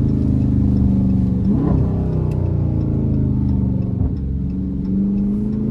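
Dodge Charger Scat Pack's 392 (6.4-litre) HEMI V8 running under way, its note falling and rising with the throttle. There is a quick change in pitch about a second and a half in and another near the end.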